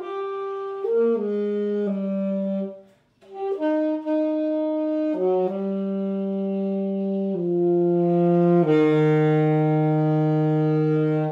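A solo wind instrument playing a slow tune of single held notes, with a short break about three seconds in. It ends on a long low note that stops near the end.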